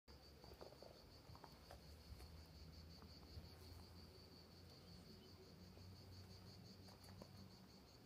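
Faint insects chirring outdoors: one steady, high-pitched, rapidly pulsing chirr, with a low rumble underneath.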